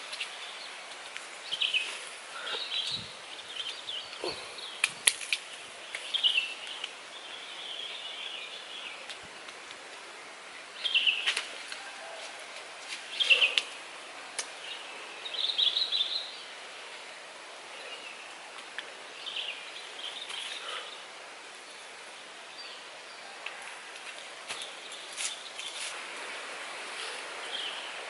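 Wild birds chirping in short calls scattered over a steady hiss of outdoor background noise, with a few sharp clicks.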